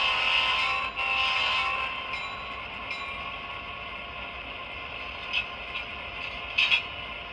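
ESU sound decoder in an HO-scale Walthers Mainline GP9 locomotive sounding its diesel horn through the model's small speaker: a held chord that breaks about a second in and sounds again briefly. The engine sound then carries on at idle, quieter, with a few short sharp sounds in the second half.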